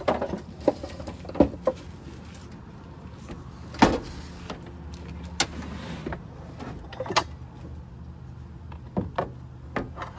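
Knocks, scrapes and clatter of gear being set up: a wooden board sliding out across a truck bed and a metal portable camp stove set down and shifted on it. The sharp knocks come every second or two, the loudest about four seconds in, over a steady low hum.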